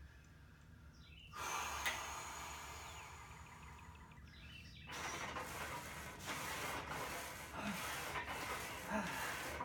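A man breathing heavily as he sets up and starts bench pressing: one long breath from about a second in, stopping abruptly near the middle, then rougher breathing.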